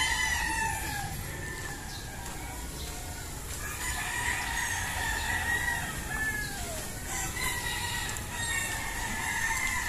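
Gamefowl roosters crowing at a distance: several long crows, one after another and overlapping.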